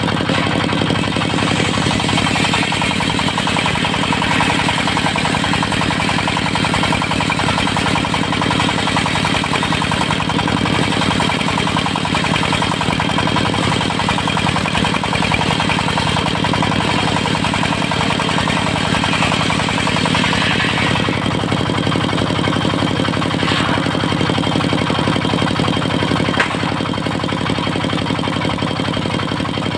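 Diesel engine of a mobile circular sawmill running steadily under way, with a brief sharp knock a few seconds before the end.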